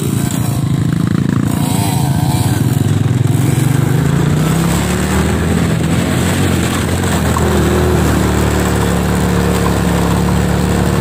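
Motorcycle engine running under way, rising in pitch as it speeds up a couple of seconds in, then holding a steady note.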